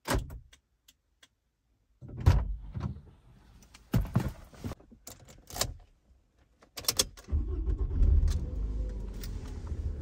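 A click of car door locks, then a series of clicks and knocks inside the car. About seven seconds in, a press of a start button beside the key ignition starts the car's engine, which runs steadily and settles a little towards the end.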